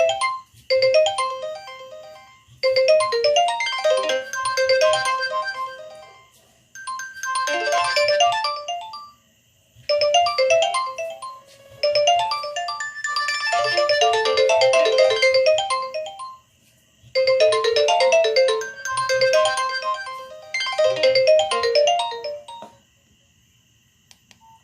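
A Nokia 6085 ringtone playing through the phone's speaker: a melody of short bell-like notes over a light beat, in phrases with brief pauses between them, ending about 23 seconds in.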